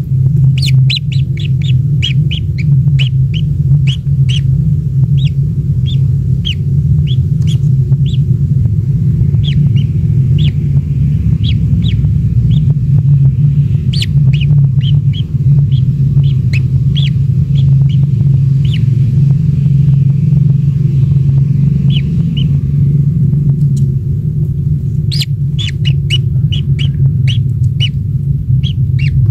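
A bird chirping in quick runs of short, high chirps, with a pause a little past the two-thirds mark. Under it runs a loud, steady low rumble.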